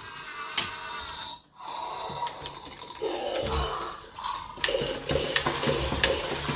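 Motorized toy dinosaurs walking on a wooden tabletop: a small motor whirring with a regular clicking of the walking gears, which becomes steady about four and a half seconds in.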